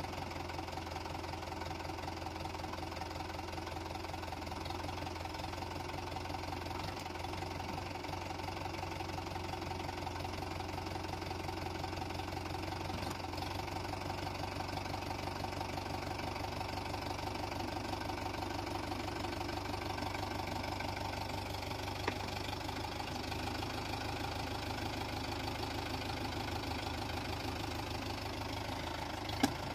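Mahindra Yuvo tractor's diesel engine idling steadily, with an even knocking beat.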